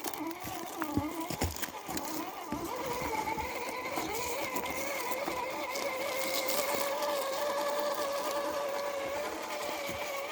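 An RC crawler truck's electric motor and gears whining under throttle. The pitch rises about three seconds in and then holds steady, with a few light ticks in the first couple of seconds.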